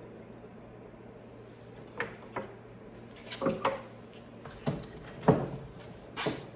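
About seven separate knocks and clatters, as of tools and a wooden workpiece being handled at a stopped wood lathe. The loudest comes a little past the middle.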